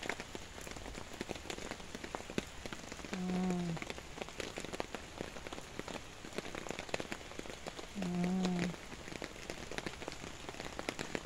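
Drizzle falling on a camping flysheet tarp and the grass around it: a steady, dense patter of small drops. Twice, about five seconds apart, a short low hum rises above the patter and is the loudest sound.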